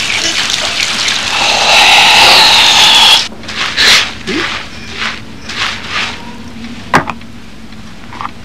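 Water poured over a head of hair in a steady rush for about three seconds, then lathered hair scrubbed in short rubbing strokes, with one sharp tap near the end.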